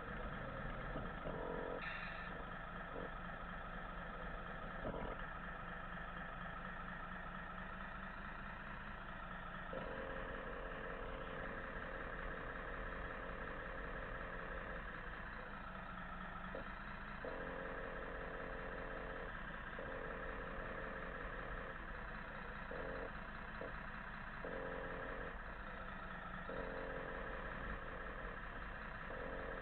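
Radio-controlled model trucks running, a steady mechanical hum of their electric drive and gears. From about ten seconds in, a whine cuts in and out several times as the model drives and pauses, with a single knock about five seconds in.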